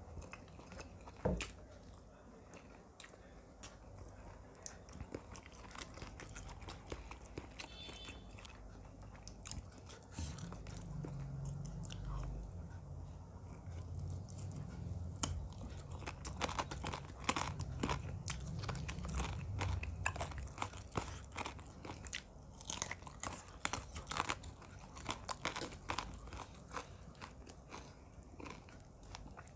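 A person chewing and biting food close to the microphone, with many small wet clicks and crunches, and a knock about a second in. A low rumble sits under the chewing for several seconds in the middle.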